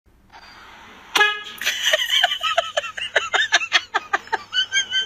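A car horn honks once, short and sharp, about a second in. A rapid run of short pitched bursts, about five a second, follows and goes on until near the end.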